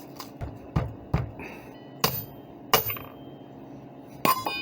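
A block of semi-sweet chocolate being chopped into small pieces: about five sharp chops at uneven intervals.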